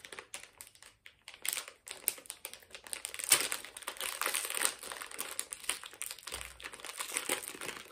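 Plastic candy packaging crinkling and rustling as it is handled, in irregular crackles with one sharper crackle a little past three seconds in.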